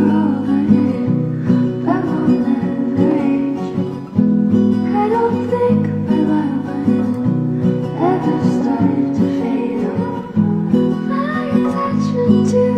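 Background music led by strummed acoustic guitar, with a melody line gliding over it.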